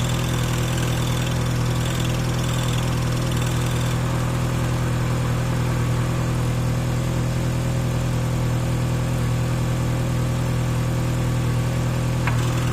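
Great Wall Hover H2 engine idling steadily with a whistle from the clutch release (throwout) bearing, the sign of a worn release bearing.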